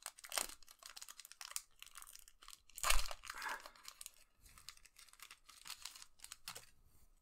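Foil wrapper of a Digimon Card Game booster pack being torn open by hand, crinkling and crackling, with a louder rip about three seconds in.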